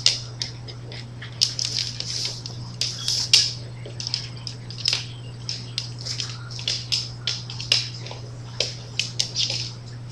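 Two small dogs playing on a hardwood floor, their claws clicking and scrabbling in quick irregular bursts, over a steady low hum.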